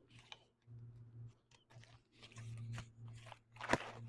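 Canvas carrying bag rustling and a folded camping cot with an aluminium frame being handled as it is taken out of the bag, with scattered clicks and one sharp knock near the end.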